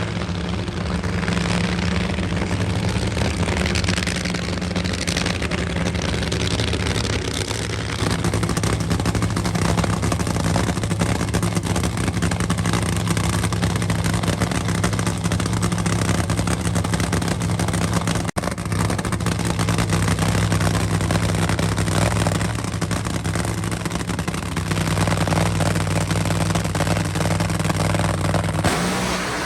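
Large engine running at a steady idle, with an even low-pitched drone that holds throughout and breaks off for an instant about 18 seconds in.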